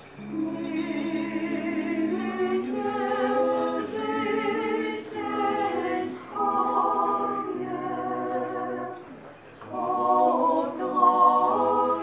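Orthodox church choir singing a liturgical chant a cappella in held chords, with short breaks between phrases about six and nine and a half seconds in.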